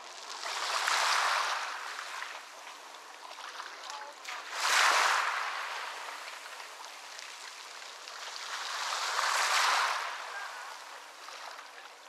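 Ocean waves washing onto a beach: three surges of surf about four to five seconds apart, each swelling and fading, the middle one breaking suddenly and loudest.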